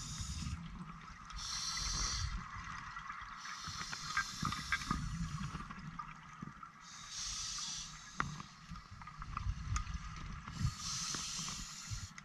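Scuba diver breathing through a regulator underwater: about four hissing inhalations a few seconds apart, with rumbling, bubbling exhalations between them.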